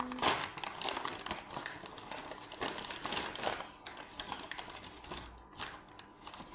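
Paper packaging rustling and crinkling in the hands as a brown paper mailer bag is handled and opened, with irregular small crackles and clicks.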